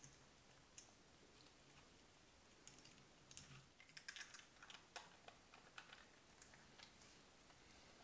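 Light clicks and ticks of a vintage Helios 44-2 camera lens and its retaining rings being handled by gloved hands. One click comes about a second in, then a run of irregular light clicks from a little under three seconds on.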